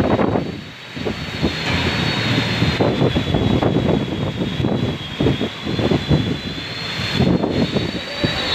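Heavy rain pouring down in a dense, steady rush, with a thin steady high tone running through it.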